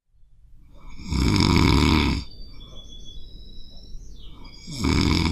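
A dog snoring loudly: one long rasping snore about a second in and another starting near the end, with a faint high whistle between them.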